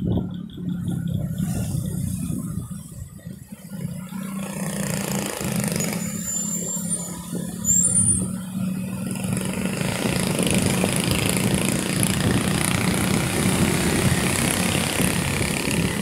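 Steady engine hum of a moving road vehicle, with road and wind rush that grows louder in the second half.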